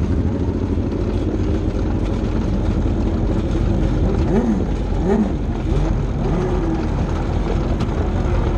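600cc micro sprint car's motorcycle engine running at low speed, heard onboard as the car rolls slowly, with a few short rises and falls in pitch about halfway through.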